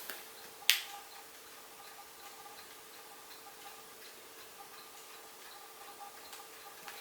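Crane ultrasonic cool-mist humidifier running: a steady hum with faint, regular ticking through it. One sharp click comes just under a second in.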